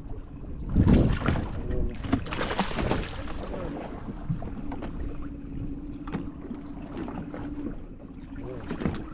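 Sounds on a small fishing boat at sea, a hooked fish being pulled alongside. A knock about a second in, then water splashing against the side of the boat, then a steady low hum under wind on the microphone.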